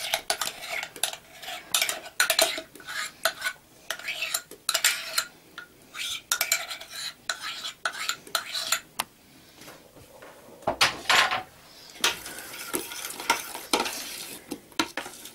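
Metal spoon scraping the last of a thick yeast starter out of a mug into a stainless steel pot, with many irregular clinks and scrapes against the mug and pot.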